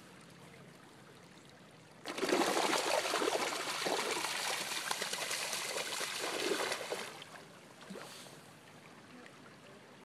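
Chum salmon splashing and thrashing in shallow stream water: a sudden rush of irregular splashes starting about two seconds in and lasting about five seconds, with a soft trickle of the stream before and after.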